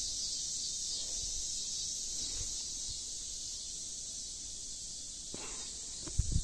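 Steady high-pitched drone of a summer insect chorus, unbroken throughout, with a few low handling thumps near the end.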